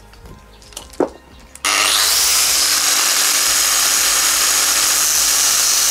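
A few light handling clicks, then about a second and a half in an angle grinder starts, winding up briefly into a loud steady grinding: the disc cutting grip grooves into the outside face of a small brass clutch piece.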